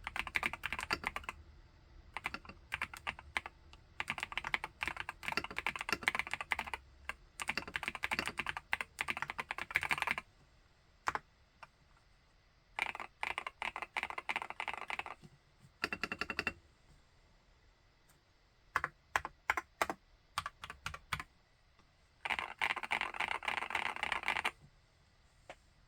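Epomaker Brick 87 mechanical keyboard with Epomaker Wisteria linear switches being typed on: fast runs of keystrokes broken by short pauses and a few isolated keypresses, with a last run that stops shortly before the end.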